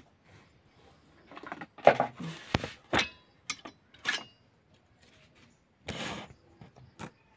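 Stainless steel kitchen bowls and utensils being handled: scattered clicks and knocks, with a brief scraping rustle about two seconds in and again near the end.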